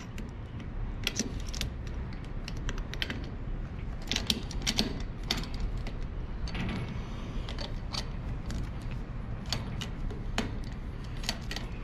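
Stainless steel vacuum fittings being handled: irregular light metallic clicks and rattles as a corrugated bellows hose end, seal and clamp are fitted onto a KF25 port, over a steady low hum.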